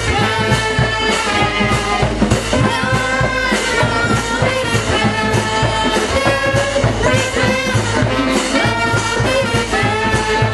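Live brass marching band playing an up-tempo tune: saxophones and trombones over snare and bass drums keeping a steady beat.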